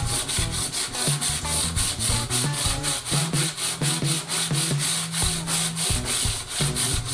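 Hand sanding a drilled pallet-wood board with a sanding block: quick back-and-forth rasping strokes, about four or five a second.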